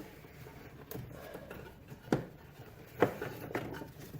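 A new rubber serpentine belt being rubbed and worked by hand around the engine pulleys, with two sharp clicks about a second apart past the middle.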